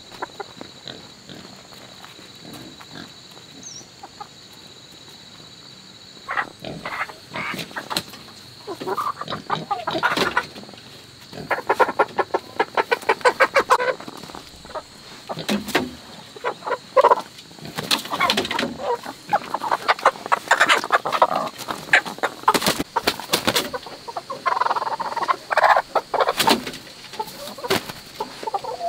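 Chickens clucking and squawking, the calls starting about six seconds in and coming in repeated clusters, over a faint steady high whine.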